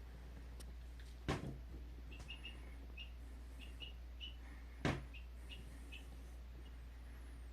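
Young chicks peeping, a string of short high cheeps in the middle of the stretch. Two sharp knocks, about three and a half seconds apart, are the loudest sounds.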